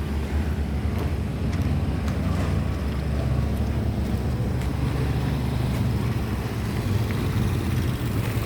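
Motor vehicle engine running steadily: a continuous low hum with a light outdoor background.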